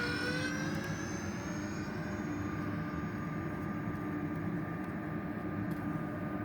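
Electric ducted fans of a radio-controlled Airbus A320 model jet in flight: a steady whine over a rushing noise, its pitch shifting slightly in the first second and then holding.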